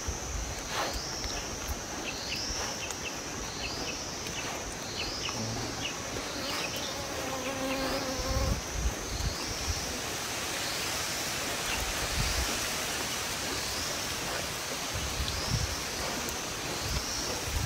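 Insects calling outdoors: a high chirp that repeats about once a second over a steady background hiss. A short low hum sounds briefly about halfway through.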